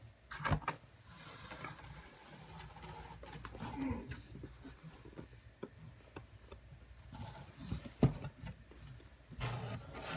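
A fabric sheet rustling as it is pulled off a cardboard box, with a sharp knock about half a second in and scattered light knocks and taps on the cardboard later, the sharpest about eight seconds in.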